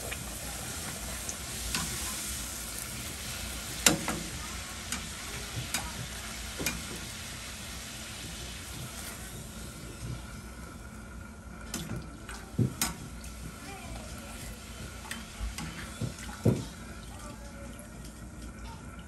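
Puri deep-frying in hot oil in a wok, a steady sizzle that is strongest in the first few seconds and eases off later. A handful of sharp clinks come from a metal slotted spoon striking the pan.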